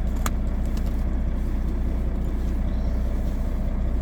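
A steady low mechanical hum, with a single sharp click about a quarter second in.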